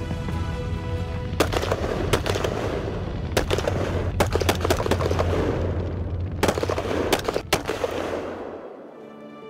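Three bursts of rapid automatic gunfire over background music, which fades out near the end.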